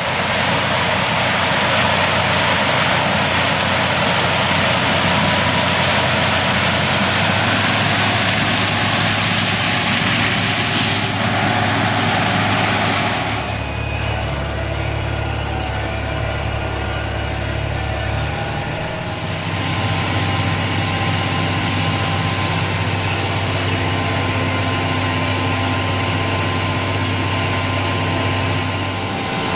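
Heavy farm machinery engines running steadily, a loud, even mechanical noise with a low hum. The sound shifts abruptly about 13 seconds in and again about 19 seconds in.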